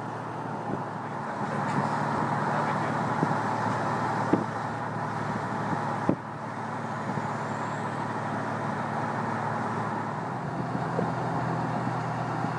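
Car driving at road speed, heard from inside: steady road and engine noise, with a couple of brief knocks about four and six seconds in.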